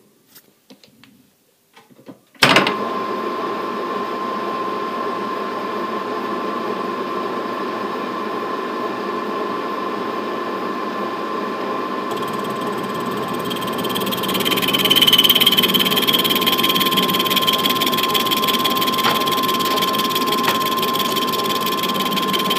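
Metal lathe switched on a couple of seconds in, then running steadily with a constant whine. About two-thirds of the way through it gets louder and a higher, thinner squeal joins as the straight grooving tool begins cutting a groove into the spinning work.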